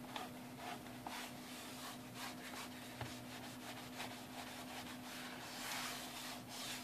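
A cloth wiping the plastic face and display window of a digital atomic clock: a run of faint, quick rubbing strokes.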